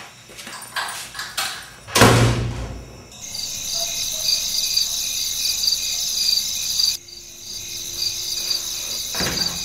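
A door slams shut about two seconds in, with a heavy thud that dies away over about a second. Then crickets chirp steadily in a high, pulsing trill.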